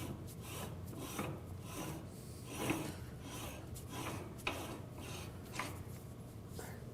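Threaded metal collar being screwed by hand onto the head of a large meat grinder over the blade and plate: faint rubbing and scraping of metal, with a light scrape or knock about once a second.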